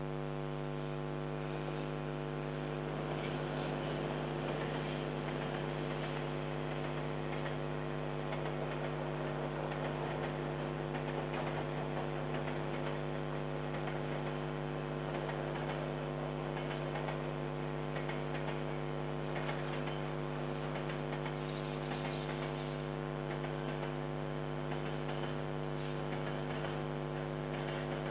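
Steady electrical mains hum picked up by the security camera's audio, a low buzz with many overtones and a faint hiss beneath it, unchanging throughout.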